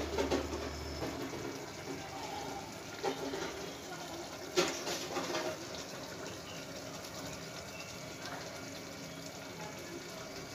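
A sour amchur-and-spice mixture boiling in an aluminium pot on a gas stove, a steady bubbling hiss. A few light knocks come through it, the sharpest about four and a half seconds in.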